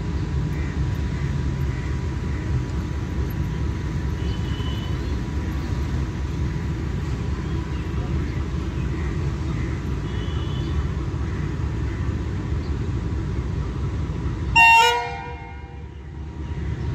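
Pakistan Railways diesel locomotive idling with a steady low rumble, then sounding one short, loud horn blast near the end, the horn signal given as the train is about to depart.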